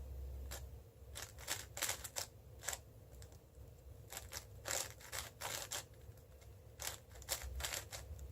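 A 5x5 speed cube (Cubicle WuShuang M) being turned quickly by hand while pairing the last edges: irregular runs of plastic clicks and clacks as the layers are turned.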